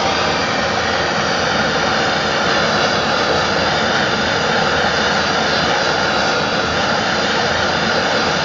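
Gas blowtorch flame burning with a steady, loud hiss, heating a copper pipe joint for soldering.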